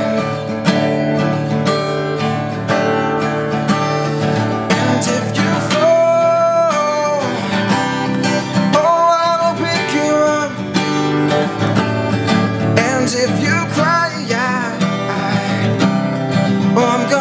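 Acoustic guitar strummed steadily in chords, with a man's wordless sung runs gliding over it in between the lyric lines.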